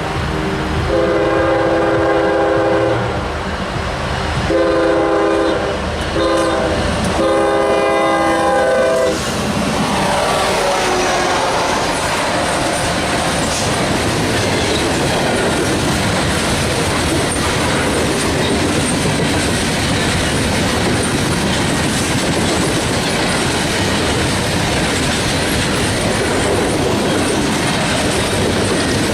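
Locomotive air horn on a GE ES40DC sounding four blasts, long, long, short, long: the grade-crossing signal. Then the locomotives and coal cars roll past, wheels clacking over the rail joints.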